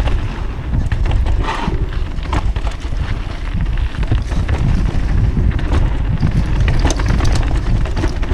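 Wind buffeting the camera microphone during a fast downhill mountain-bike descent, with knobby tyres rolling over packed dirt and the bike rattling and clicking over bumps.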